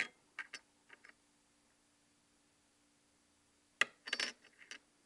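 Sterling silver rings clicking and clinking against each other and a wooden tabletop as they are picked up and set down. A few light clicks come at the start, then a pause, then a sharp click and a short run of clinks near the end.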